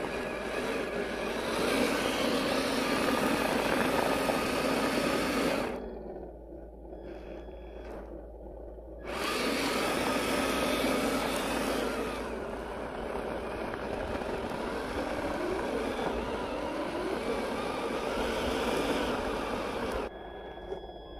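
Brushed 540-size electric motor and gear drivetrain of a 1/10-scale RC rock crawler whining under load while its tyres spin and scrabble on loose dirt. The sound drops off for about three seconds near the middle, then picks up again.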